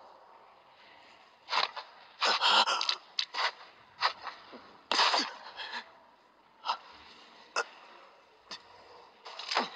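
A wounded anime swordsman's short, sharp gasps and strained breaths: about a dozen quick bursts at uneven intervals, the loudest cluster a couple of seconds in.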